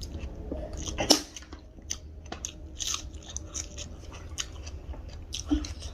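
A person chewing a mouthful of food close to the microphone, with many small wet clicks and smacks and a sharper click about a second in.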